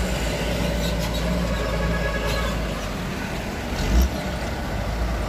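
Truck diesel engine pulling past under throttle: a steady low rumble, with a brief thump about four seconds in.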